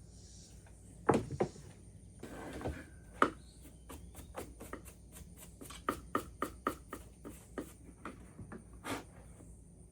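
Clatter of small hard parts being handled: scattered sharp knocks, then a quick run of clicks at about four a second in the middle.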